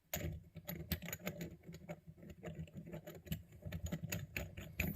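Irregular light clicks and clinks of small brass air-line fittings and tools being handled on a workbench.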